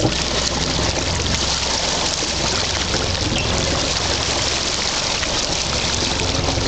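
Sea water rushing and splashing along the side of a moving boat and through its churning wake, steady throughout, over a low steady hum of the boat's engine.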